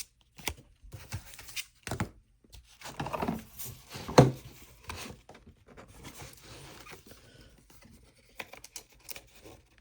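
Pokémon trading cards and pack wrappers being handled: rustling, scraping and small taps, with a couple of louder knocks about three and four seconds in.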